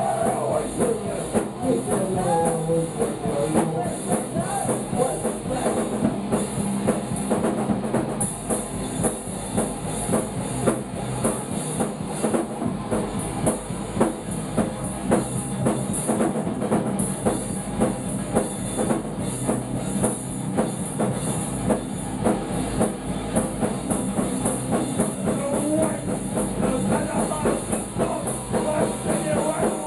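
A punk rock band playing loud and live: electric guitar and a pounding drum kit in a dense wall of noise, with vocals near the start and again near the end.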